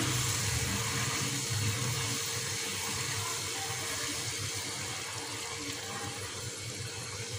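Tomato sauce cooking in a non-stick wok while it is stirred with a silicone spatula: a steady hiss that slowly grows quieter.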